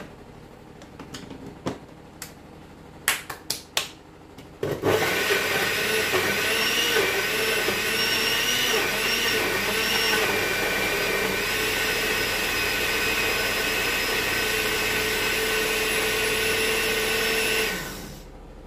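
Countertop electric blender running for about thirteen seconds, puréeing green chillies, cherry tomatoes and shallots into a sambal belacan paste; its motor tone wavers at first, then steadies, and winds down near the end. Before it starts, a few sharp clicks.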